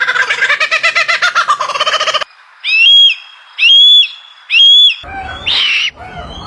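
Animal calls in quick succession: about two seconds of a rapid, trilling call, then three identical loud whistled calls about a second apart, each rising then held, then a short harsher call near the end.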